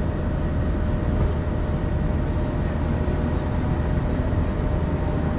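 Steady low hum of a stationary modern low-floor tram's onboard equipment, with a faint steady whine over street noise.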